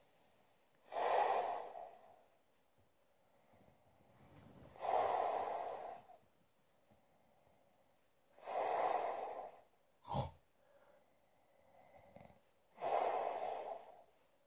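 A sleeping man breathing heavily: four long, noisy breaths about four seconds apart, with one short sharp sound about ten seconds in.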